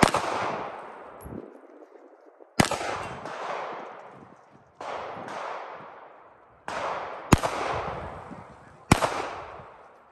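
Gunshots fired one after another, about a dozen at uneven intervals of half a second to a second and a half, each trailing off in a long echo.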